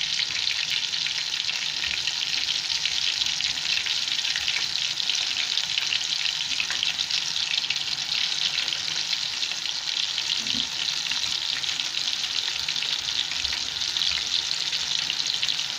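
Gram-flour-coated fish pieces frying in a pan of hot oil: a steady sizzling hiss.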